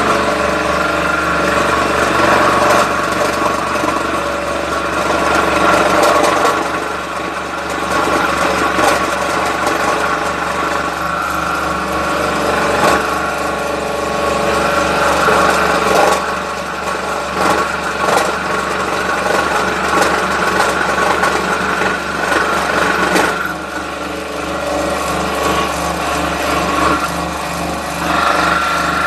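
Scroll saw running, its fine reciprocating blade cutting a curve through a thick wooden board, with a steady motor hum under the rasp of the cut. The cutting noise eases and returns a few times as the piece is fed and turned.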